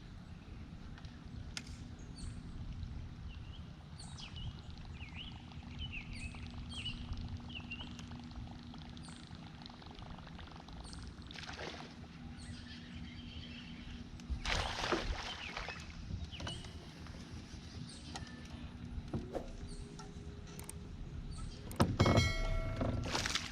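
Outdoor lake ambience from a boat: a steady low rumble of wind and water with a faint steady hum and scattered bird chirps. There are a few brief splashing or knocking sounds past the middle, and a loud clatter near the end.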